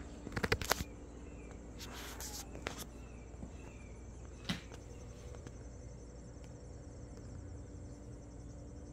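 Insects chirping outdoors in a fast, steady, high trill, clearest in the second half. A quick run of sharp clicks about half a second in and a single knock about four and a half seconds in are the loudest sounds.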